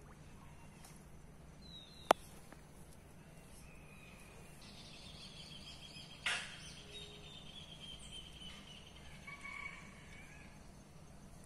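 Outdoor ambience with birds calling: a long wavering high call from about four and a half seconds, then shorter calls near the end, over a steady low hum. A single sharp click about two seconds in is the loudest sound, and a brief noisy burst follows about six seconds in.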